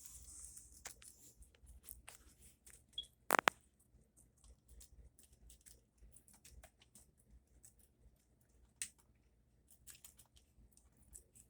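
Guinea pigs chewing and tearing at lettuce leaves: faint, irregular crisp crunches and small clicks. One sharp, much louder click comes about three and a half seconds in.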